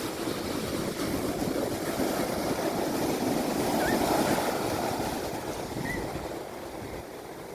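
Sea waves washing in, a rushing noise that swells to its loudest about four seconds in and then recedes, with two faint brief chirps over it.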